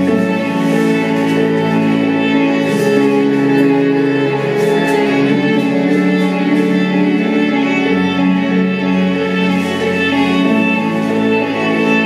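Slow instrumental music with bowed strings, long held notes changing every few seconds.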